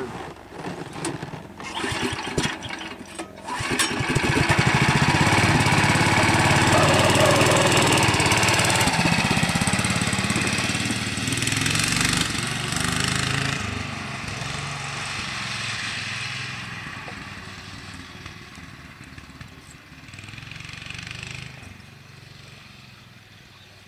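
A 12-horsepower 414cc Power Horse four-stroke engine on a three-wheeled Tricart ATV. After a few knocks it starts about three seconds in and runs loud. Over the second half it fades away steadily as the machine drives off.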